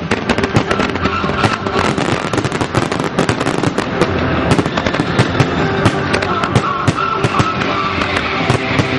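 Aerial fireworks shells bursting in quick succession, a dense run of sharp bangs and crackling with no pause.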